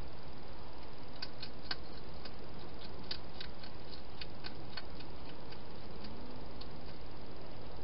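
A hedgehog eating at a food bowl: a string of small, irregular crunching clicks, a few a second, starting about a second in and thinning out near the end, over a steady hiss.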